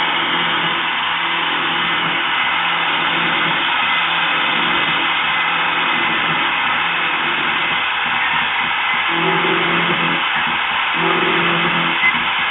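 CNC mill adaptive-milling steel: a steady hiss from the spindle and cut, with a low hum that starts and stops in stretches of about a second near the end as the axes move.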